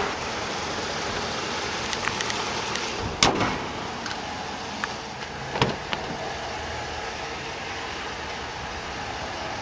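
2009 Dodge Ram's 5.7-litre Hemi V8 idling steadily and quietly, with a single sharp slam about three seconds in as the hood is shut and a lighter knock a couple of seconds later.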